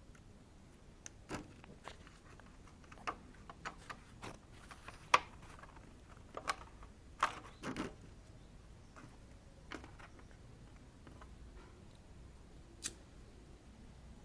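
Scattered light clicks and knocks at irregular intervals, the sharpest about five seconds in, from hands working on a washing machine's control panel and module during a repair.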